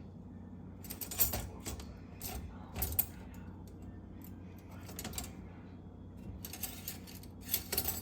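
Dishes and metal cutlery clinking and clattering as they are handled, in scattered bunches of sharp clinks, busiest about a second in and again near the end.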